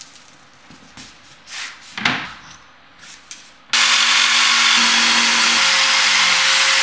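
A few light knocks, then a little over halfway through a corded jigsaw starts abruptly and runs steadily, cutting across a laminate floor plank.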